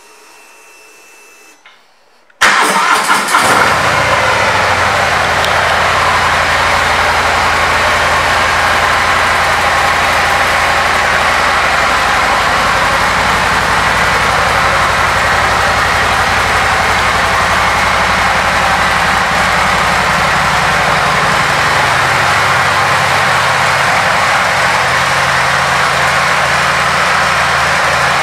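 Harley-Davidson Milwaukee-Eight 114 V-twin engine starting about two seconds in, then idling steadily.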